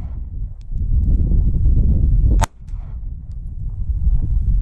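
A single pistol shot about halfway through from a 9mm Smith & Wesson Shield firing a cast-lead round, set against a steady low rumble of wind on the microphone.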